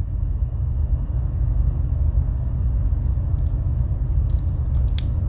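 Steady low background rumble, with a sharp click near the end.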